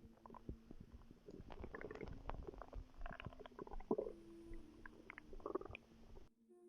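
A pregnant woman's stomach gurgling and rumbling: an irregular run of wet pops, clicks and gurgles that stops abruptly near the end.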